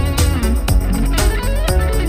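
Background music led by guitar, with bending notes over a steady beat.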